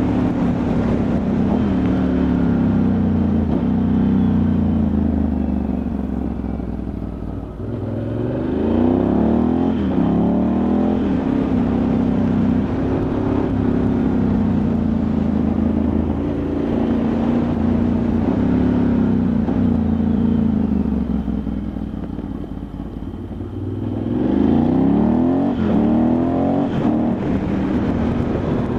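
Ducati Multistrada 1100S's air-cooled L-twin engine running as the motorcycle is ridden. The engine note drops twice, about 7 and 23 seconds in, then climbs in pitch again as it accelerates.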